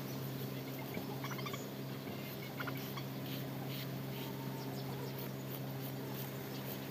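Soft scraping of a raw potato being peeled against the iron blade of a bonti, over a steady low hum, with a few faint short chirps.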